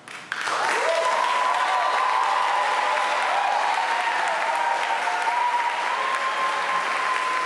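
Live audience applauding, starting abruptly just after the start and holding steady, with a few high-pitched calls heard over the clapping.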